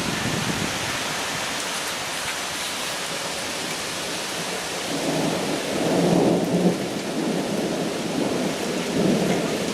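Heavy rain falling in a steady hiss during a thunderstorm, with a low rumble of thunder swelling about halfway through and again near the end.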